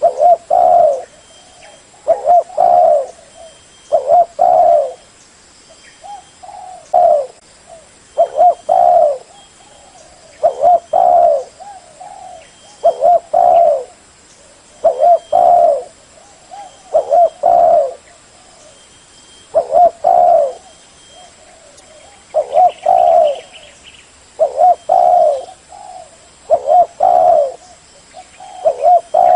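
Spotted dove cooing: the same short phrase of several low coos, repeated about every two seconds.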